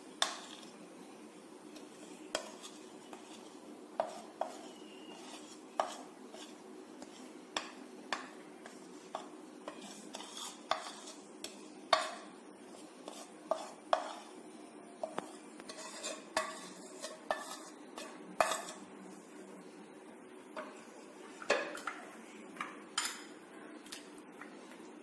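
Spoon stirring spices into yogurt in a bowl, clinking against the bowl irregularly, about one or two clinks a second, over a steady low hum.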